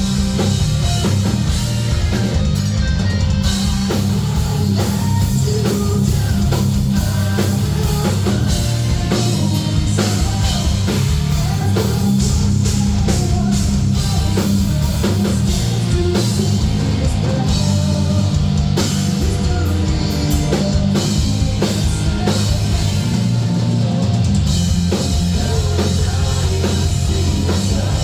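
Heavy metal band playing live on amplified gear: distorted electric guitars, bass and a drum kit, loud and continuous.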